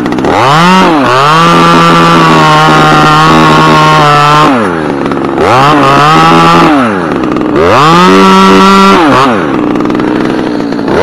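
Stihl top-handle trim chainsaw cutting into a white oak limb in three or four bursts. Its pitch sweeps up at each burst, holds steady and a little lower through the long first cut of about four seconds, and drops back toward idle between cuts.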